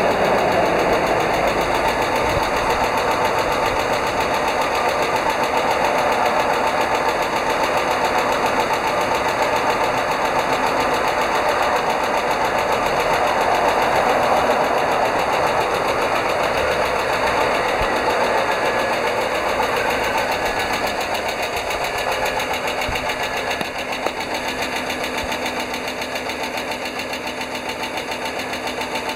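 American school bus engine running with a rapid, steady ticking from the valvetrain, which the owner suspects is a failing hydraulic lash adjuster (lifter) at over 140,000 km. The sound eases slightly in level about two-thirds of the way in.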